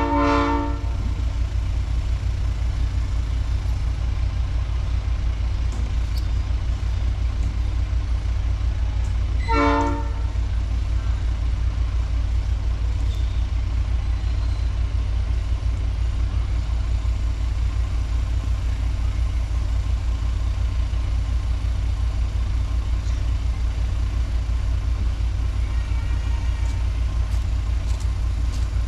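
Miniature-railroad locomotive giving two short toots, one at the very start and one about ten seconds later, over a steady low rumble: the departure signal after the call of all aboard.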